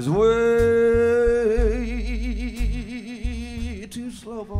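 A man's singing voice holds one long wordless note in a live blues band. He slides up into it, holds it steady, then adds a wide vibrato, and drops off near the end. Upright bass and a few drum hits sound underneath.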